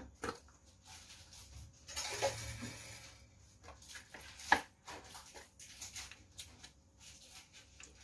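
Quiet handling of a steel spoon and a fish-sauce bottle over a clay mortar: scattered faint clicks, a short soft hiss about two seconds in, and one sharper click a little past the middle.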